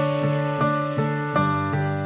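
Instrumental background music, with notes struck at a steady pulse of about three a second over held chords.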